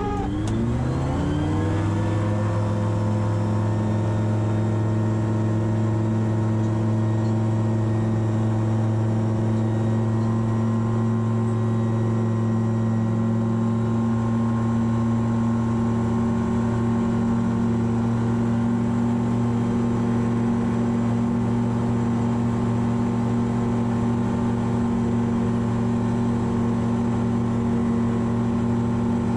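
Light gyroplane's engine at takeoff power: its pitch rises quickly over the first couple of seconds, then it runs steadily through the takeoff roll and climb, heard from inside the cockpit.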